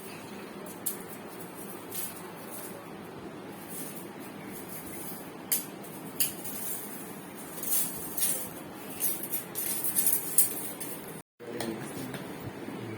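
Scattered clicks and clinks of hard objects being handled over a steady room hum, growing busier and louder in the second half.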